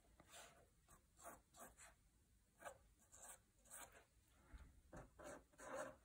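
Faint scratching of a black fine-liner pen drawing small spirals on watercolour paper, in short irregular strokes, the loudest near the end.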